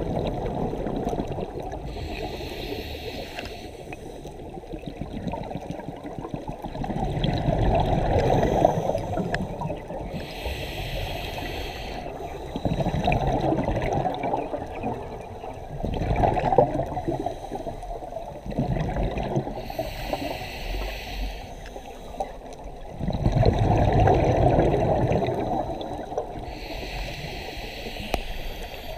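Scuba diver breathing through a regulator underwater: a hissing inhale alternating with a gurgling rush of exhaled bubbles, one breath every several seconds.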